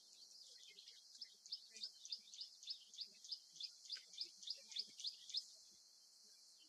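A bird calling in a rapid series of short, high, rising chirps, about five a second, that starts about a second in and stops about five and a half seconds in, over a faint high hiss.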